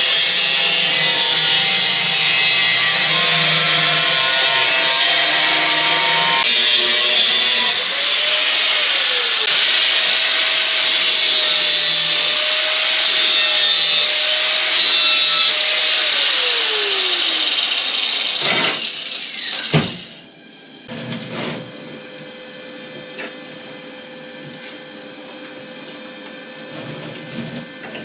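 Power tool cutting or grinding 16-gauge sheet steel for a motorcycle battery box, running loud and steady with a wavering whine. About two-thirds of the way in the whine falls in pitch as the tool winds down and stops, followed by a single sharp knock and a quieter steady hum.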